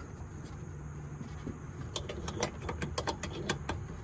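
Irregular sharp clicks and knocks, several a second, from about two seconds in: hand work on car parts and tools around a headlight mounting, over a low steady hum.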